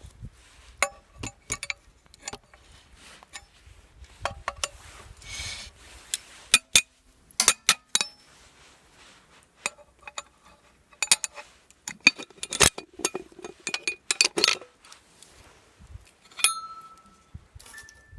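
Metal camping cookware and utensils clinking and clattering as they are handled, in irregular knocks, some of them ringing briefly.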